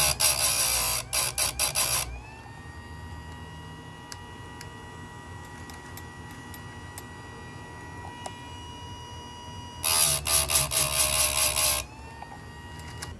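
Electric chainsaw chain sharpener's abrasive wheel grinding the steel of a chain tooth, throwing sparks, for about two seconds at the start and again for about two seconds near the end. Between the two passes the motor runs unloaded with a steady whine that climbs back up in pitch as the wheel regains speed after each grind.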